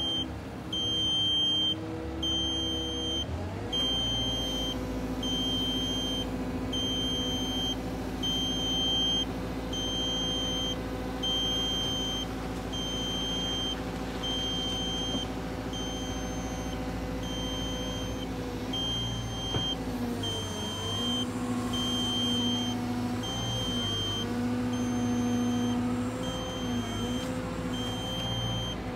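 CAT M316F wheeled excavator's Cat C4.4 diesel engine running; its pitch steps up about three and a half seconds in and dips and recovers several times in the second half as the arm works. An electronic warning beeper sounds steadily about once a second over it.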